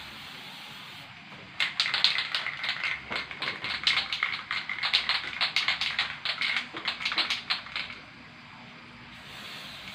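Aerosol spray-paint can: a short hiss of spraying, then the can shaken for about six seconds, its mixing ball rattling in a fast, uneven run of clicks, and the spray hiss resuming near the end.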